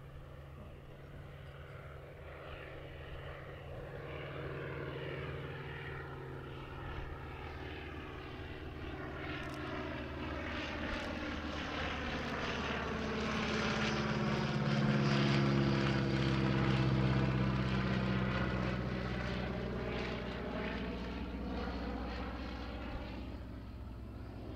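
Focke-Wulf Fw 44 J Stieglitz biplane in display flight, its Siemens-Halske Sh 14 seven-cylinder radial engine and propeller droning steadily. The drone swells as the plane passes closest, a little past halfway, then fades again.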